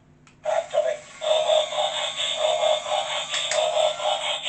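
Jada Toys radio-control Optimus Prime's built-in small speaker playing its electronic transformation sound effect as the toy converts from truck to robot mode. It starts about half a second in and pulses about four or five times a second.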